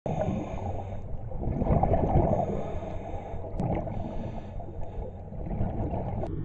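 A dive boat under way, heard muffled: a low engine hum under uneven rushing water.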